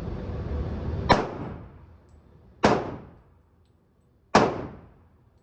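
Three single gunshots from a handgun, fired one at a time about a second and a half apart, each ending in a short echoing decay.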